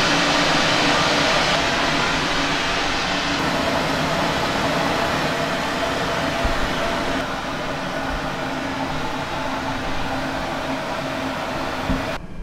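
Steady rushing hiss of steam pouring out from under the cloth cover of a stainless-steel commercial steamer, with a low hum underneath. It stops abruptly near the end.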